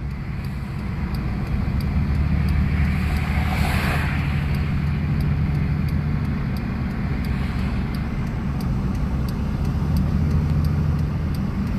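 Tractor engine running steadily while driving along a road, with a continuous low hum and a brief swell of rushing noise about four seconds in.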